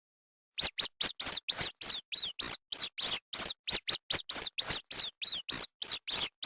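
Rat squeaking: a rapid run of about twenty short, high-pitched squeaks, each rising and falling in pitch, starting about half a second in.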